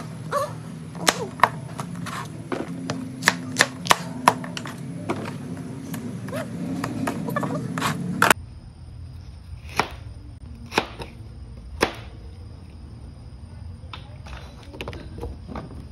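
Kitchen knife chopping okra on a cutting board: a quick run of sharp chops through the first eight seconds or so, then a few single chops spaced about a second apart.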